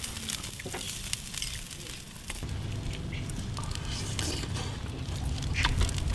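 Scattered small crackles and clicks from the charcoal grill of eel and from close-up chewing, then a low rumble, like wind on the microphone, from about two seconds in.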